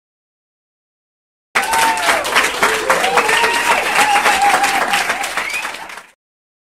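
Audience applauding, dense clapping with a few voices calling out over it; it starts suddenly about a second and a half in and fades out near the end.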